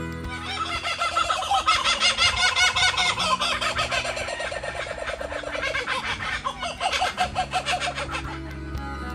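Laughing kookaburras calling: a long run of rapid chuckling notes that rises and falls in loudness, strongest in the first few seconds.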